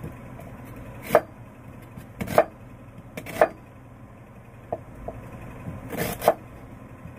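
Kitchen knife cutting a red onion on a cutting board: separate sharp knocks of the blade meeting the board, roughly one a second, with a quick double knock near the end.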